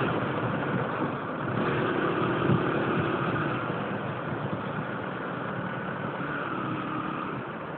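Yamaha Factor 125 motorcycle's single-cylinder four-stroke engine running while riding, under a steady rush of wind and road noise, getting gradually quieter.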